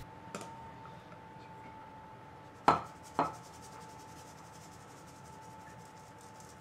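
Flour being sifted through a metal mesh sieve: two light knocks of kitchenware about two and a half and three seconds in, then a faint fast ticking as the sieve is shaken.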